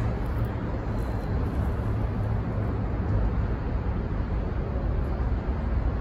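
Steady low rumble of distant engines and road traffic, with no single sound standing out.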